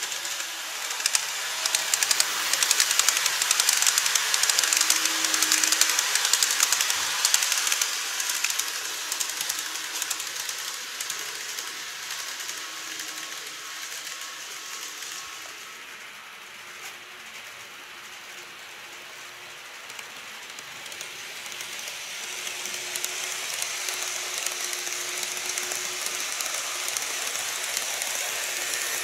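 Model trains running on the layout track: a steady rattling clatter of wheels on rail with a faint motor whine. It is loud for the first several seconds as a train passes close by, fades away, then builds again near the end as a 787 series express model comes round the lower curve.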